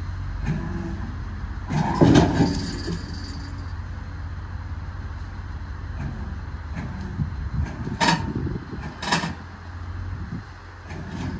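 Machinery running steadily while chains take up under a winch pull on a seized tracked machine. There is a heavy metal clunk about two seconds in and two sharp metal clanks near eight and nine seconds, from the seized chains and tracks shifting under load.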